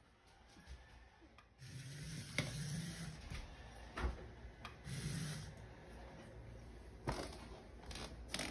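Remote-control toy spider moving across a laminate floor: a faint, intermittent motor whirr with rubbing and scraping, and a few sharp knocks.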